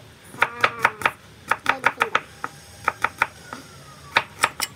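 Chef's knife chopping garlic cloves on a wooden cutting board: quick runs of sharp knocks, four or five in a row, with short pauses between the runs.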